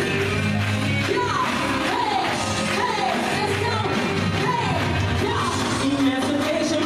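Music with singing at a steady level; a voice slides down in pitch about once a second.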